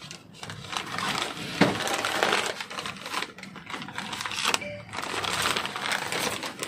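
Rustling and clattering of small items being handled, with a sharp click about one and a half seconds in and another about four and a half seconds in.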